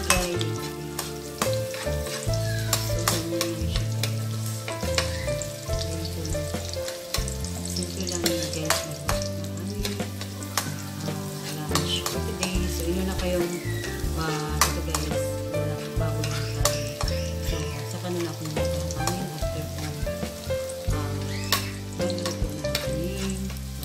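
Garlic and onion sizzling in oil in an aluminium wok, with a long metal spatula stirring them and repeatedly scraping and tapping against the pan.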